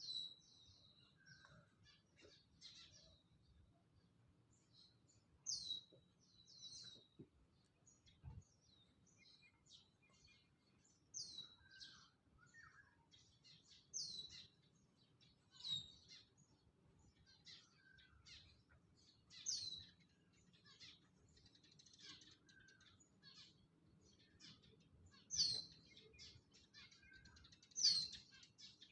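Wild birds calling: one bird repeats a sharp, high call that drops quickly in pitch, about eight times at uneven intervals of a few seconds, over a scatter of softer chirps from other birds.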